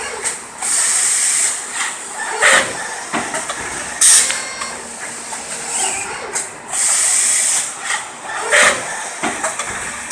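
High-speed side-entry servo robot at a moulding machine cycling: bursts of compressed-air hiss from its pneumatic valves, several times, the longest lasting about a second, with sharp mechanical knocks between them.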